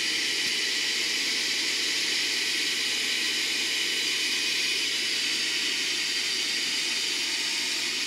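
Oil furnace burner firing after start-up: the burner motor and blower run with a steady hiss and rumble. The burner has lit, so the fuel supply problem is cured.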